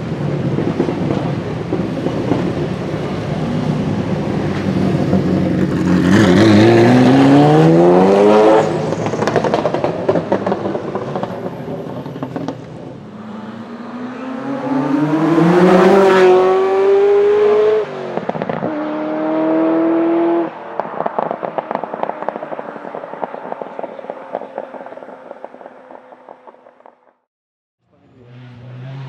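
Ferrari F40's twin-turbo V8 accelerating hard past the microphone, its pitch climbing with the revs and cutting off sharply at each gear change or lift-off, then dying away.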